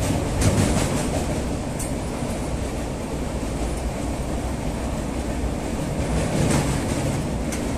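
Train running across a long bridge, heard from inside the carriage: a steady rumble of wheels on the rails, with a few sharper clacks about half a second in and again near the end.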